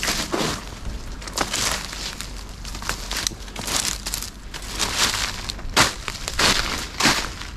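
Footsteps crunching over rough ground and brittle debris, with irregular crunches about two a second.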